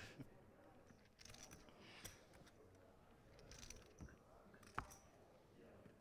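Near silence: faint room tone with a few soft clicks, the sharpest one nearly five seconds in.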